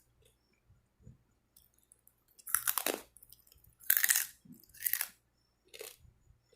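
Person biting and chewing hard, crunchy seasoned pork rind strips. About four crunches come roughly a second apart, starting some two and a half seconds in.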